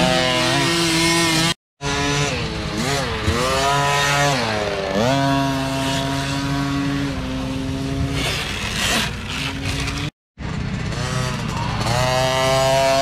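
Small youth dirt bike engines revving up and down as the riders work the throttle on a trail, with pitch repeatedly rising, falling and holding steady. The sound cuts out briefly twice.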